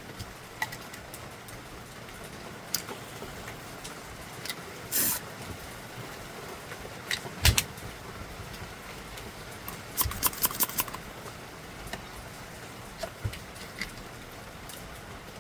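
Scattered clicks and knocks of plastic inkjet printer parts being handled, with one louder knock partway through and a quick run of five or six clicks about ten seconds in.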